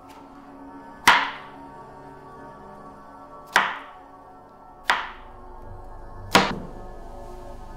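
Four sharp chef's-knife chops through strawberries onto a plastic cutting board, each with a brief ringing tail, spaced one to two and a half seconds apart, over a low steady music drone.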